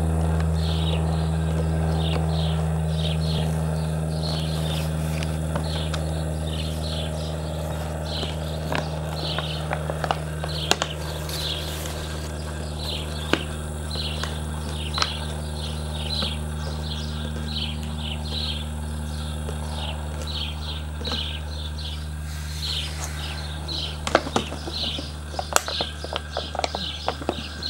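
A puppy biting and pushing an empty plastic water bottle, the plastic crackling in sharp clicks that come more often near the end. Under it are a steady low hum and a regular high chirping, two or three chirps a second.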